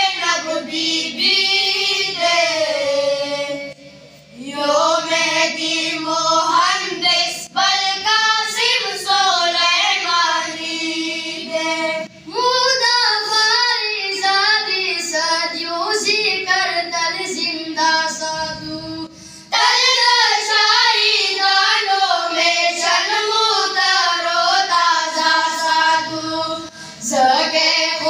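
Boys singing a Pashto devotional song (tarana/noha) together, in long sung phrases broken by short pauses about every eight seconds.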